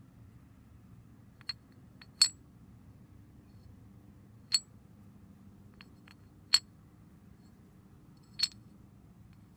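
Roller weights being dropped into the slots of an aluminium CVT variator pulley from a Honda Elite 50 scooter: about half a dozen sharp, short clinks a second or two apart, the loudest about two and six and a half seconds in.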